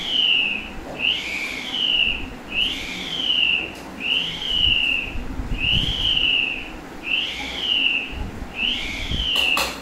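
Light-up string whirligig (button spinner) whistling as its string is pulled and relaxed: a high whistle that rises and falls in pitch with each pull, repeating about once a second.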